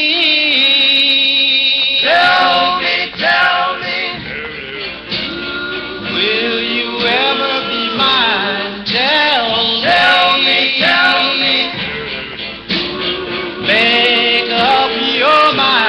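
A 1950s–60s doo-wop vocal group record, a 45 rpm single played on a Silvertone portable record player: voices singing in close harmony, opening on a long held chord, then moving lines. It sounds dull, with no high treble, as heard from the player's speaker.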